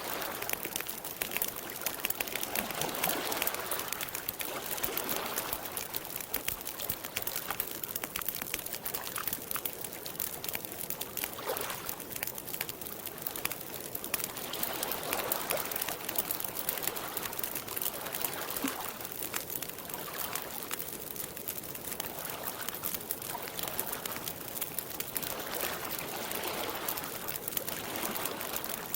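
Campfire crackling with many small pops, over the trickle and lap of lake water.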